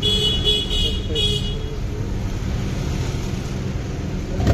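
Steady low rumble of vehicle engines and traffic, with a run of high-pitched pulsing tones in the first second and a half and a short knock at the very end.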